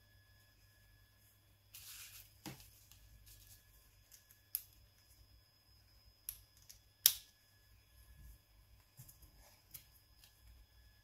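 Small sharp clicks and taps of a Nokia N93 mobile phone's body and swivel hinge being handled and snapped into position, the loudest click about seven seconds in, with a brief rustle around two seconds in.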